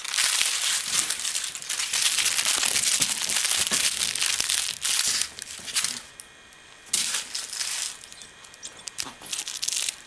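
A kitten chewing and batting a crinkly blue foil ball toy: a dense crackling crinkle that drops away for about a second some six seconds in, then comes back in short spells.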